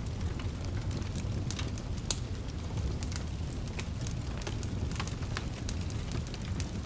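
Wood fire crackling: irregular sharp pops and snaps, several a second, over a steady low rumble of the burning logs.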